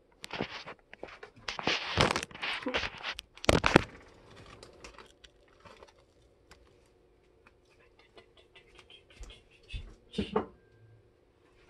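Rustling and scraping handling noises in irregular bursts, loudest over the first four seconds, with fainter scratchy ticks after and another burst near the end.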